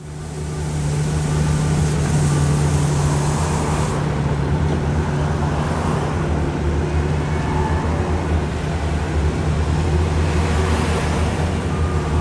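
Road roller's diesel engine running steadily, a low, even drone that fades in over the first second.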